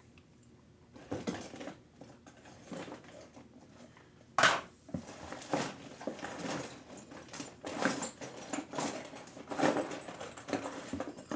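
Small hand tools clinking and rattling as they are sorted through, a search for a 2 mm hex driver, with one sharp clack about four and a half seconds in.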